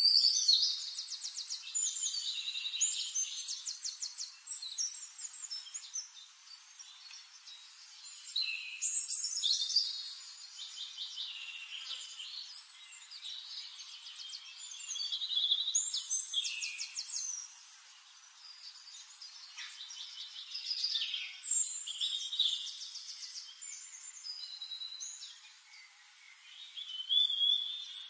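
Songbirds singing: bursts of rapid trills and whistled phrases that come back every six to seven seconds.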